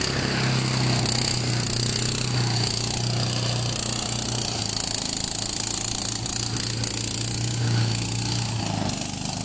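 Small engine-driven shredder running steadily, with an even, fast pulsing hum throughout.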